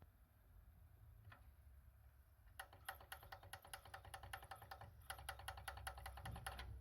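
Yamaha CDX-393MkII CD player clicking mechanically. There is a single click about a second in, then a rapid run of faint clicks, about seven a second, for roughly two seconds, a brief pause, and another two seconds of the same.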